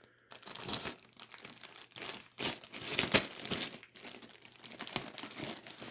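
Amazon mailer envelope crinkling and tearing as a folding knife blade slices it open, in irregular scratchy rustles.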